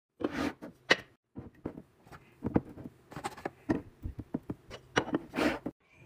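Kitchen items being handled and set down on a granite countertop: an irregular run of sharp clicks and knocks, with several short swishing scrapes.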